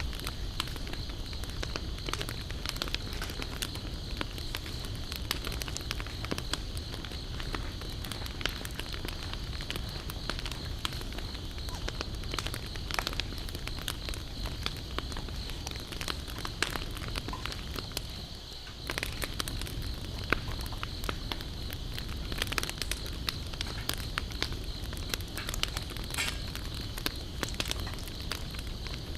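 Wood campfire crackling, with many sharp pops, over a steady high-pitched insect drone.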